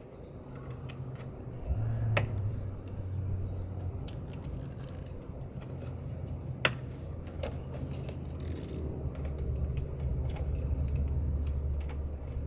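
Scattered light clicks and taps as a rubber truck door seal is handled and pressed into place, with two sharper knocks, one about two seconds in and one near the middle. A steady low rumble runs underneath.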